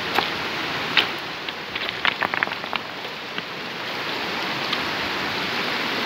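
Shallow river running over rocks: a steady rush of water, with a quick run of small splashes and spatters between about one and three seconds in.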